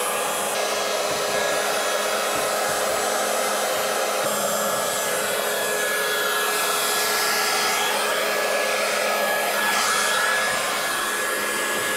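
1500 W electric heat gun running steadily on its high setting: an even rush of blown air with a faint steady whine in it.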